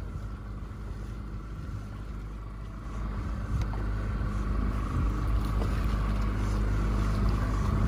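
Boat's outboard motor running steadily at low speed, with water noise. It grows louder about three seconds in.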